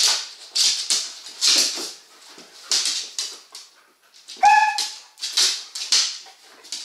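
Adult Hungarian vizsla and vizsla puppy play-fighting: a run of short, rough noisy bursts about every half second, with one high, clear yelp about four and a half seconds in.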